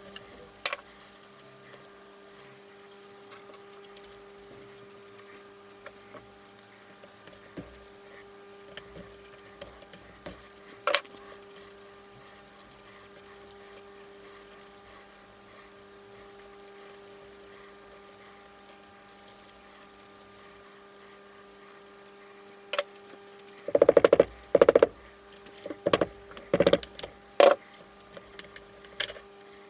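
Metal tools and engine parts being handled during a motorcycle engine teardown: scattered sharp clicks and clinks, then a run of louder metallic knocks and clanks toward the end, over a steady low hum.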